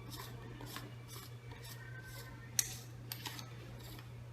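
Threaded metal part at the bottom of a crimping tool being unscrewed by hand: faint, evenly spaced scraping strokes about two a second, with one sharper metallic click a little past halfway.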